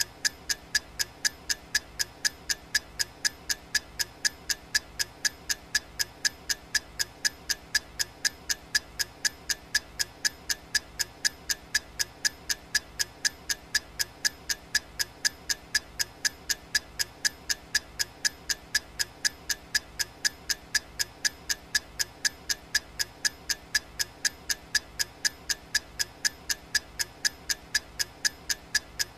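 Clock-style ticking sound effect of a countdown timer: sharp, evenly spaced ticks, several a second, at a steady level.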